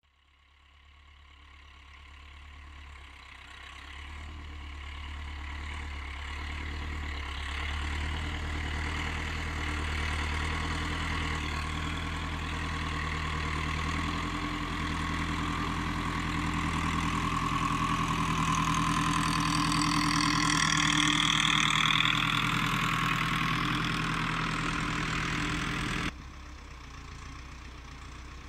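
LKT-81 forestry tractor's diesel engine running as the machine drives through the snow, fading in and getting steadily louder, with a high whine that swells and bends in pitch a little past the middle. Near the end the sound drops suddenly to a quieter engine hum.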